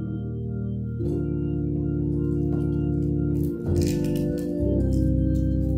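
Organ playing slow, held chords, moving to a new chord about a second in and twice more about two-thirds of the way through.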